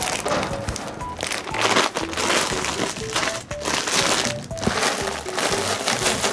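Light background music with a simple stepping melody, over the crinkling of a foil cat-food bag being handled.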